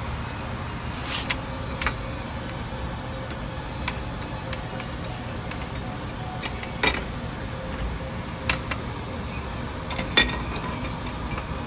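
Scattered metal clinks and knocks as a cast-iron babbitt pouring jig is worked by hand, its clamps and handles being set, over a steady low rumble. The loudest knocks come about ten seconds in.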